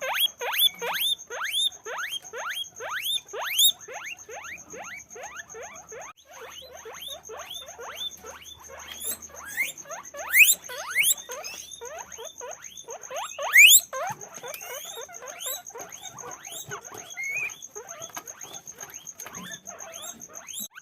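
Guinea pigs squeaking in a fast run of short, high calls that fall in pitch, about three or four a second, with a few louder squeals partway through.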